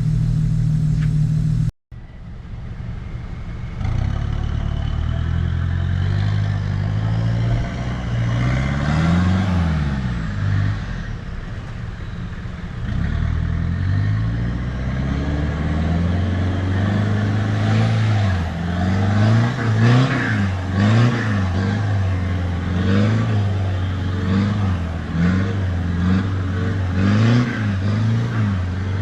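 Four-wheel-drive vehicle's engine revving up and down over and over as it works along a rough off-road track, the revs rising and falling more often in the second half. There is a short break about two seconds in.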